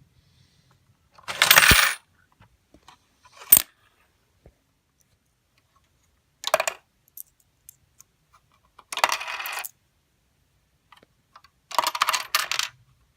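Coins dropping through a LEGO coin mechanism, clattering against the plastic bricks. There are four separate rattles a few seconds apart and one sharp click between the first two: quarters going in one at a time to unlock the mechanism.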